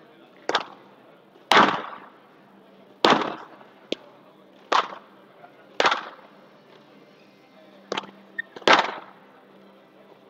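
Squash rally on a glass court: sharp cracks of the racket hitting the ball and the ball striking the walls, about one a second, each with a short echo.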